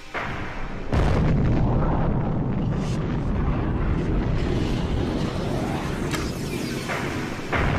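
A loud, continuous explosive rumble with no clear pitch. It starts suddenly about a second in and jumps louder again near the end.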